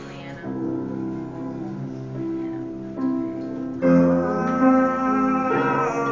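Live piano playing, with held chords that change every second or so; the music turns louder and fuller about four seconds in.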